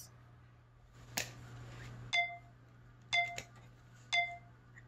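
A clear plastic ruler being handled on a sheet of drawing paper: a short sliding scrape about a second in, then four sharp taps, each with a brief ringing tone, as the ruler is set down and lined up on the page.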